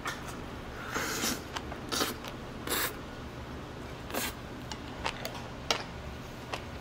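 A person eating at a table: irregular clicks of utensils against dishes and a few short noisy bursts of eating sounds, over a low steady hum.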